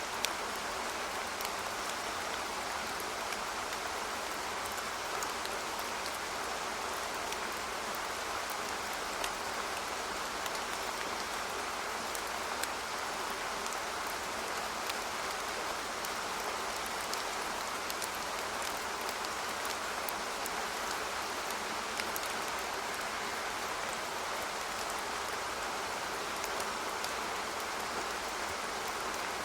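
Steady rain falling, with scattered individual drops ticking throughout.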